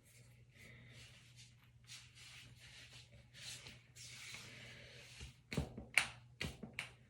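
Soft rustling of hands shifting on skin and clothing, then four sharp cracks in quick succession over about a second and a half near the end: shoulder joints popping under a chiropractic adjustment.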